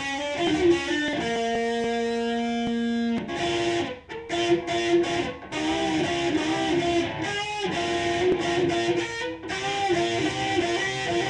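Supreme electric guitar played through a Line 6 amp on its metal channel. A chord opens, then a single note is held for about two seconds, followed by short picked phrases broken by brief stops.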